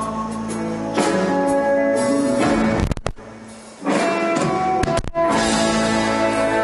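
Live folk-rock band playing an instrumental passage between sung lines, with acoustic guitar to the fore. The music drops away for under a second near the middle, then comes back in full.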